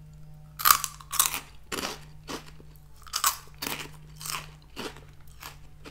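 Garden Veggie Straws, a hollow potato-starch snack, crunched in the mouth: about ten crisp crunches at roughly two a second, starting just over half a second in. A faint steady low hum runs underneath.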